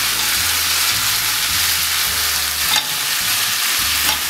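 Fried chicken pieces, bell peppers and onions sizzling steadily in hot oil and sauce in a frying pan while a spatula stirs and turns them.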